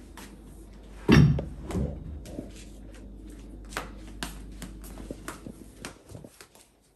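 Kitchen items being handled and moved about: scattered knocks and clicks, with one loud thump about a second in and a smaller one shortly after. A low steady hum underneath stops about six seconds in.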